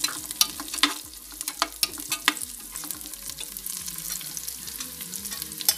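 Sliced onions and curry leaves sizzling in hot oil in a pressure cooker pot, frying to a deep golden brown. A spatula scrapes and clicks against the pot as they are stirred: clicks come thick in the first two seconds or so and once more, sharply, near the end.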